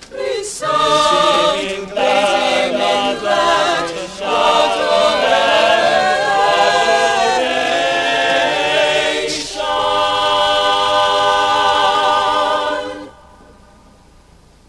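Mixed choir of men's and women's voices singing a cappella in harmony, closing on a long held chord that cuts off about two seconds before the end.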